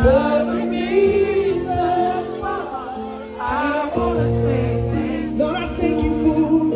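Live band music: a man singing lead into a microphone over keyboard and other instruments, with long held chords underneath.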